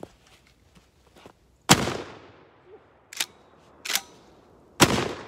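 Two blasts from a 12-gauge Dickinson Commando pump-action shotgun firing 3-inch magnum 00 buckshot, about three seconds apart, each with a ringing tail. Between them come two sharp clacks as the slide is worked back and forward to chamber the next shell.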